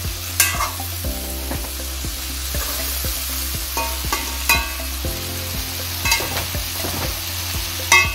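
Chopped vegetables sizzling as they stir-fry in an aluminium kadai, stirred with a slotted steel spatula that clinks sharply against the pan a few times.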